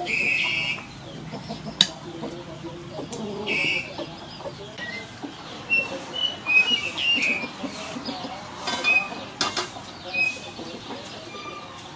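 Chickens clucking, with short calls scattered every few seconds, and a couple of sharp clicks, one about two seconds in and one near the end.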